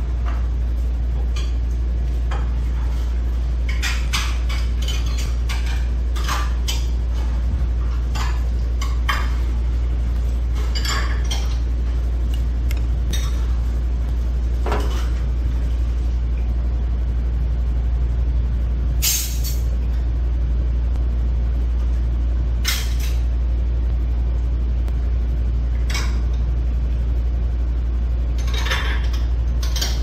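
A spoon and chopsticks clinking now and then against a ceramic soup bowl, over a steady low rumble.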